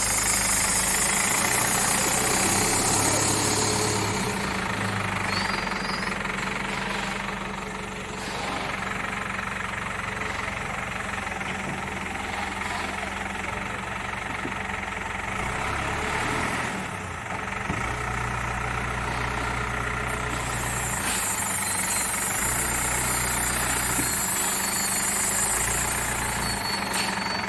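Diesel engine of a Cat 424B backhoe loader running, its low note shifting up and down in strength several times as the machine works. A strong high hiss comes in for the first few seconds and again about twenty seconds in.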